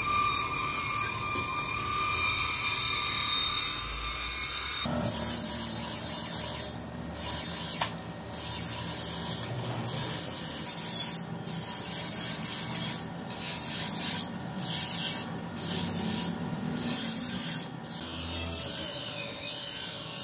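A steel knife blade being ground on a spinning grinding wheel, giving a harsh, hissing grind. From about five seconds in, the blade is repeatedly lifted and pressed back, so the grinding breaks off briefly every second or so.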